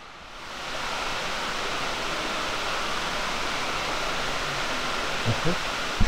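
Steady rushing of a stream's falling water, swelling up over the first second. A voice is heard briefly near the end.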